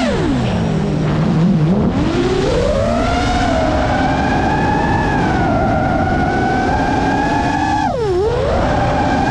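GEPRC Mark 5 FPV quadcopter's motors whining with the throttle. The pitch drops sharply as the throttle is cut, stays low for about two seconds, then climbs and holds steady, with a quick dip and recovery about eight seconds in.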